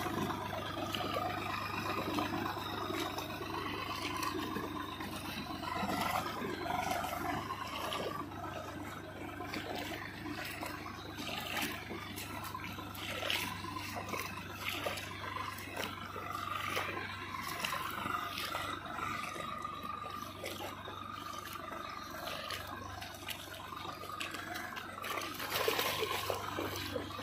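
Muddy water sloshing and churning as a tractor-drawn rotavator tills a flooded paddy field, over the steady low drone of the tractor's engine.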